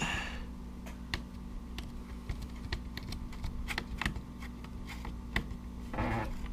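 Irregular small clicks and taps of a screwdriver, screws and plastic parts being handled while a drone's shell and circuit board are taken apart, with a brief rustle at the start and again near the end.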